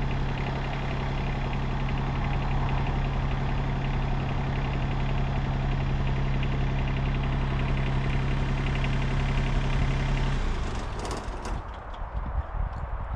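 Tractor engine running at a steady speed, then stopping about ten seconds in, leaving a few faint knocks.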